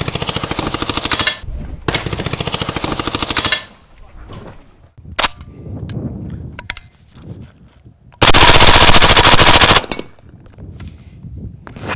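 Suppressed HK MP5 submachine gun with a Rugged Obsidian 9 suppressor firing on full auto: three bursts of about a second and a half each, the last one the loudest, with short pauses between them.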